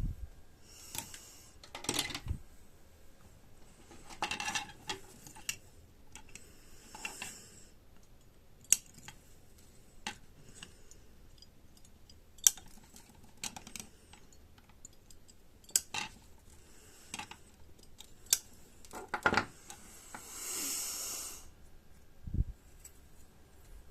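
Scattered sharp clicks and light metallic taps of small hand tools and component leads being handled while a circuit board is populated, with a few short soft rushes of noise and a longer one near the end.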